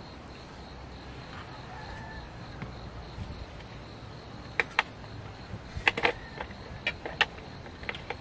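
A steady high insect trill, with a scatter of sharp crinkles and clicks from about halfway through as a plastic food packet is handled and opened.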